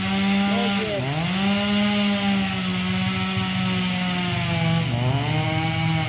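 Small chainsaw running at high revs while cutting a tree. Its pitch drops briefly about a second in and again near the five-second mark, then climbs back.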